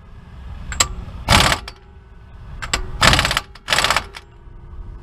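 Impact wrench on its lowest setting hammering in three short bursts, with a few light clicks between. It is running the rear differential pinion nut down a little at a time to line up the alignment marks and set the pinion preload.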